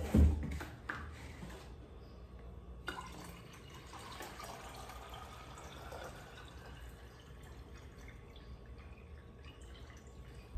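A thump or two at the start, then water poured from a plastic pitcher into a plastic bottle, a thin trickle that slowly rises in pitch as the bottle fills.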